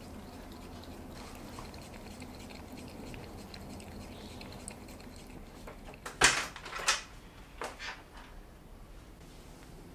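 Metal door lever and latch clicking as a wooden door is opened: two sharp clicks less than a second apart, then a few lighter clicks. Before that, only faint steady room tone.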